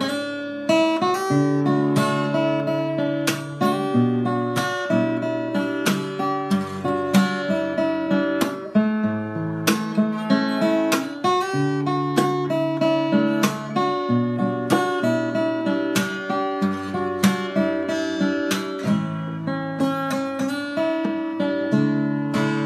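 Davis JG38 cutaway acoustic guitar played with the fingers: a continuous run of plucked notes and strummed chords ringing over low bass notes.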